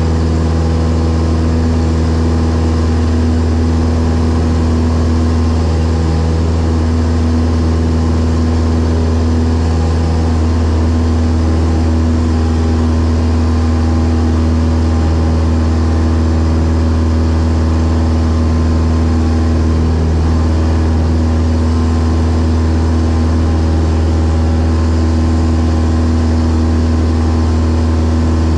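Light single-engine propeller airplane in flight: the engine and propeller drone steadily at a constant pitch, with a wide rushing hiss over it.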